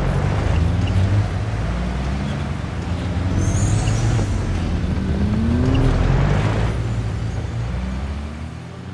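Several race cars sweeping past one after another at speed, their engines revving with pitch rising. The loudest pass comes about two-thirds of the way through, and the sound fades away near the end.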